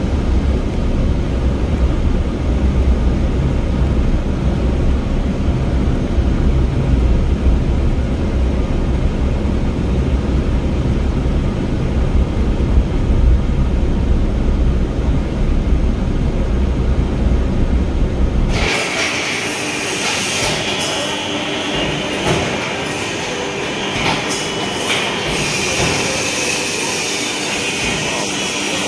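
Steady low road and engine rumble inside a moving car's cabin. About two-thirds of the way through it cuts abruptly to the constant, hissy din of a sheet-metal workshop with power presses running, with a few knocks.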